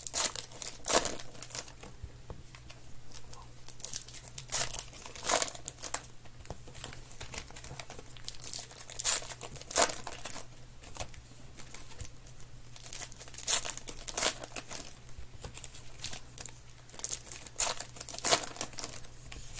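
Baseball card pack wrappers being torn open and handled: irregular crinkling and crackling with tearing of the wrapper.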